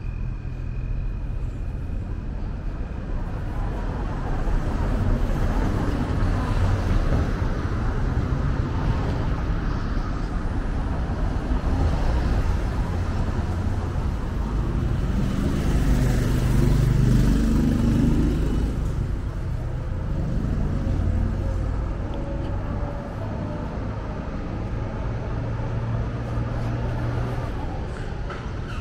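Street traffic ambience: a steady rumble of road vehicles, with one vehicle passing more closely about halfway through, the loudest moment.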